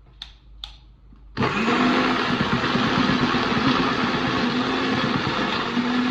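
Electric kitchen blender switched on about a second and a half in, its motor running loud and steady as it purées pepper, onions and garlic. Two light clicks come just before it starts.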